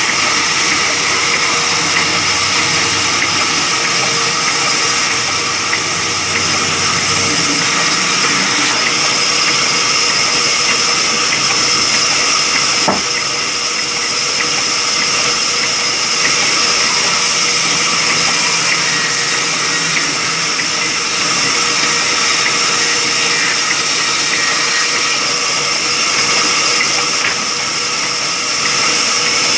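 Large belt-driven band saw running steadily while its blade rips lengthwise through a thick hardwood plank, a loud, even hiss over a steady hum. A single sharp click about halfway through.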